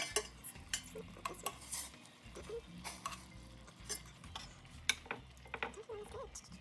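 Cooking utensil clinking and scraping against a pan as food is stirred, in irregular knocks.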